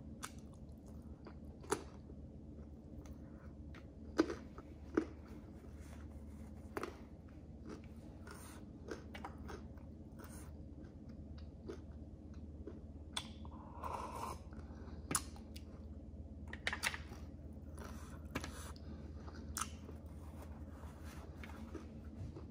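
A person chewing and crunching food close to the microphone, with irregular short crisp clicks of biting and mouth sounds.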